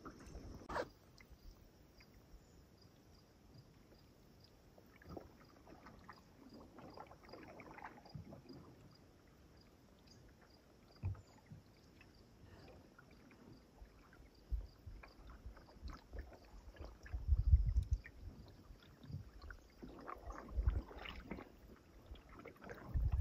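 Canoe paddling: paddle strokes swishing and dripping in the water, with a few low thumps, the loudest about seventeen seconds in. A faint, steady high ticking, about two a second, runs underneath.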